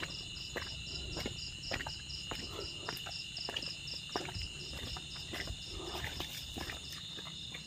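Steady chorus of insects: a continuous high trill with a pulsing chirp about six times a second. Over it are footsteps walking through muddy, brushy ground.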